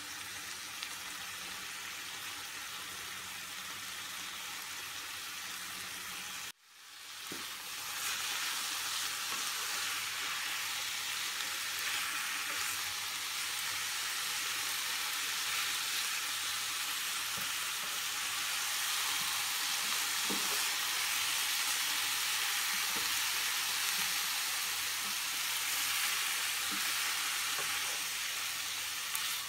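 Chicken breast, broccoli, carrots and green bell pepper sizzling in a frying pan as they are stir-fried with a wooden spatula, with a few light knocks of the spatula. The sound drops out briefly about six seconds in, and the sizzle is louder after that.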